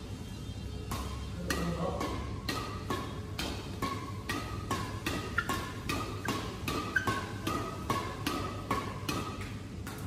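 Fast badminton drive exchange between two players: racquets strike the shuttlecock back and forth about three times a second, each hit a sharp ping of the strings, starting about a second in.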